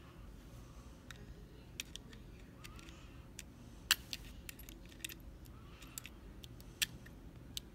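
Small metal parts of a Kwikset Smartkey lock clicking and clinking as the lock is handled and taken apart: a dozen or so scattered light ticks, with a sharper click about four seconds in and another near the end.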